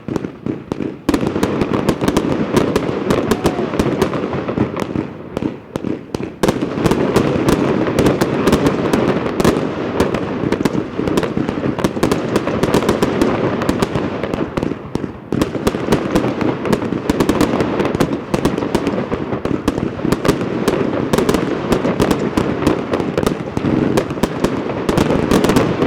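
The Avalanche firework firing a rapid, nearly continuous barrage of bangs and crackles, with short lulls about one, six and fifteen seconds in.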